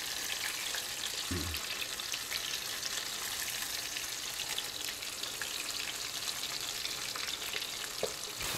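Cracker-crumb-coated trout fillets frying in hot oil in a stainless steel frying pan: a steady sizzle with scattered small crackles.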